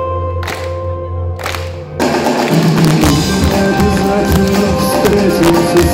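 Live band playing an instrumental passage between sung lines: a sparse beat over a held bass note, then about two seconds in the full band, with electric guitar, comes in louder.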